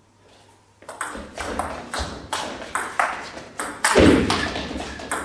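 Table tennis rally: the ball clicking sharply off the paddles and the table in quick succession, starting about a second in. About four seconds in comes a louder hit with a heavier thump under it.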